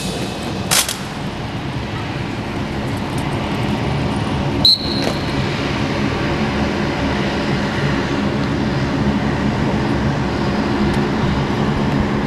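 A steady engine-like rumble with a low hum, slowly growing louder. A sharp clack comes about a second in, and a short high chirp near five seconds.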